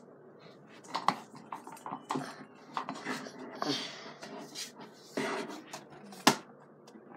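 Handling noise as a camera is moved around: irregular clicks, knocks and rustling, with one sharp knock about six seconds in.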